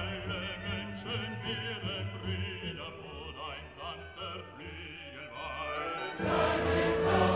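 Background music: an operatic voice singing with wide vibrato over orchestral accompaniment, growing louder and fuller about six seconds in.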